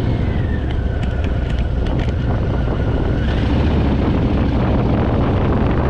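Harley-Davidson Fat Boy's V-twin engine running steadily under way, with wind rushing over the microphone. A thin whine sinks, then climbs again about three seconds in.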